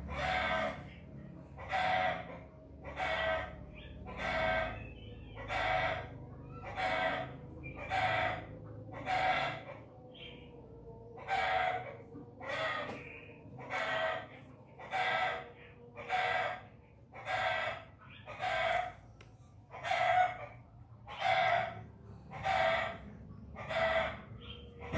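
An animal calling over and over, about twenty short pitched calls in an even rhythm, just under one a second.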